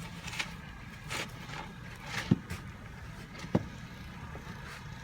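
Crunching and swishing in snow, with two short thumps about two and three and a half seconds in, over a steady low rumble.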